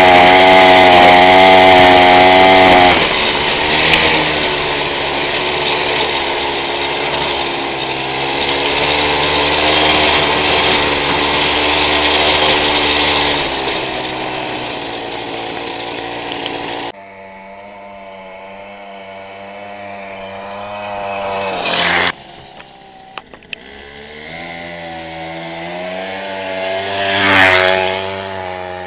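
Small 50cc mini motorbike engine buzzing at high revs, first close up from on the bike. Later another mini moto revs up, passes close by about 27 seconds in, and fades as it rides away.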